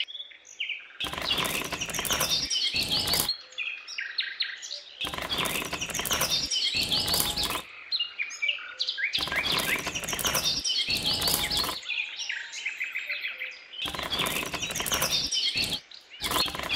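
Birds chirping in dense bursts of quick chirps, each about two seconds long, coming about every four seconds with quieter gaps between.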